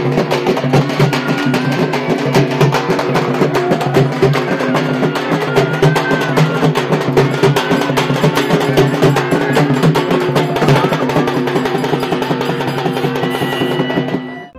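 Procession music: fast, dense drumming with a steady droning tone and a melody over it. It cuts off abruptly at the end.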